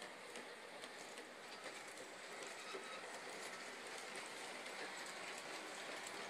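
Small G-gauge model steam locomotive and coaches running steadily on brass track: a steady rolling rattle of wheels on rail with faint scattered clicks.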